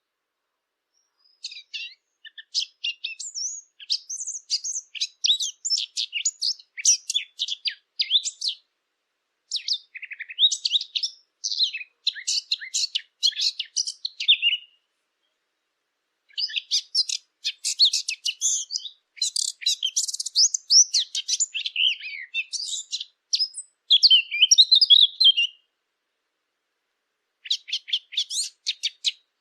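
A Sylvia warbler, the bird sold as the 'fig bird', singing: long, fast, rambling warbled phrases of several seconds each, with short pauses between them, four phrases in all.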